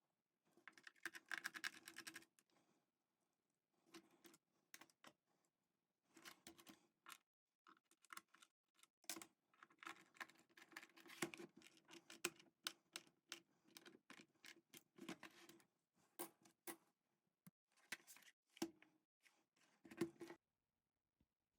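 Faint, irregular bursts of clicking keys, like typing on a computer keyboard, in short runs with brief pauses between them.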